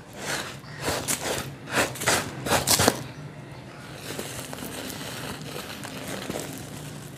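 Moulded domes of dry yellow sand crunching as hands squeeze and break them: about six loud crunches in the first three seconds. A softer rustle and trickle of loose sand falling through the fingers follows.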